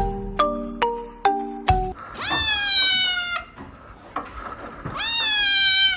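A few struck mallet-instrument notes of music, then a cat meowing twice: two long, drawn-out meows that fall slightly in pitch.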